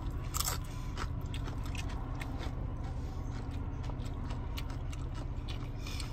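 Someone chewing and crunching food close to the microphone, with many small crisp clicks over a steady low hum.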